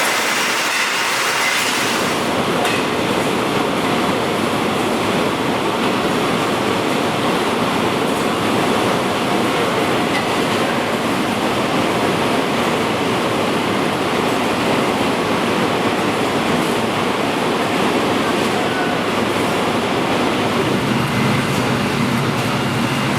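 Steady, loud machinery noise, a continuous rumble and clatter that runs without a break.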